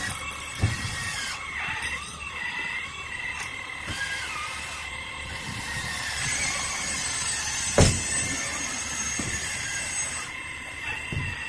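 The electric hydraulic pump of a 1/14-scale RC hydraulic excavator whining steadily, its pitch wavering and dipping as the hydraulics are worked. There is a short knock about half a second in and a louder one near eight seconds in.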